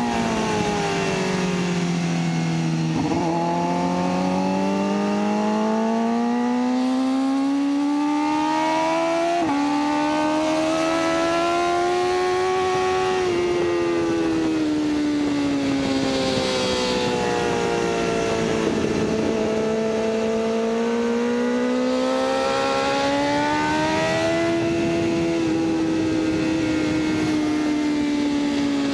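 BMW S1000RR's inline-four engine under hard track riding, its pitch climbing and falling through the corners. Its note drops abruptly at a few gear changes, and wind rushes over the microphone.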